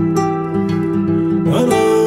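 Instrumental stretch of a rap song's backing track, with held melodic notes over a beat and no rapping.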